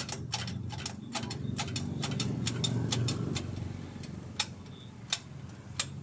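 Sharp metallic clicks from tool work on the car's steering rack, quick and irregular for the first few seconds, then a few single clicks spaced well apart, over a low rumble that swells toward the middle.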